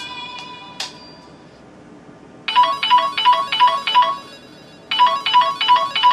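Samsung Wave S8500 ringtone: a trilling electronic ring of about five quick pulses, a pause, then the same ring again. The last notes of the previous tone fade away about a second in.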